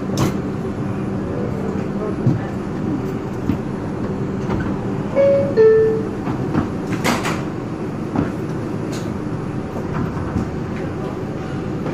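Interior of an R142 subway car: a descending two-note door chime about five seconds in, then a sharp knock a second and a half later as the doors shut, over the car's steady rumble.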